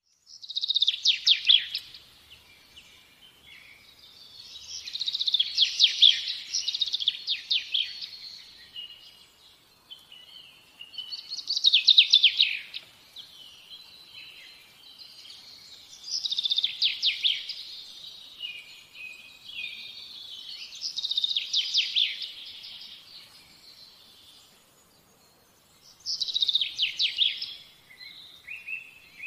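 A songbird singing in repeated high-pitched phrases of rapid trills, about six phrases, each one to three seconds long, with short pauses between them.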